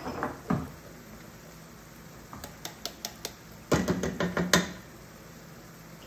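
Cans knocking and tapping against a stainless steel stockpot while canned black beans are emptied in and a seasoning can is shaken over the pot. A few knocks at first, a run of light, sharp taps in the middle, then a louder clatter.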